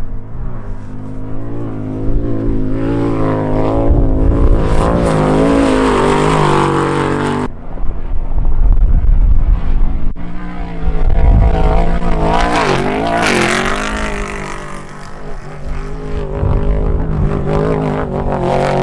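Off-road race vehicle engines revving hard, rising and falling in pitch as they throttle up and pass. The sound changes abruptly twice, about seven and a half seconds in and again near ten seconds, as one clip cuts to the next.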